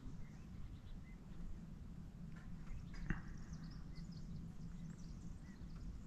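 Low, steady rumble with a few faint, short chirping calls scattered through it and a single sharp knock about three seconds in.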